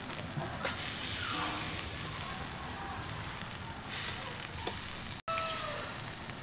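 Marinated duck pieces sizzling on a wire grill over charcoal, with a few sharp metallic clicks of tongs against the grate. The sound drops out for an instant a little past five seconds in.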